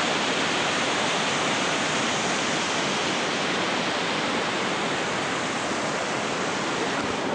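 Mountain stream rushing: a steady, loud hiss of falling water with no change.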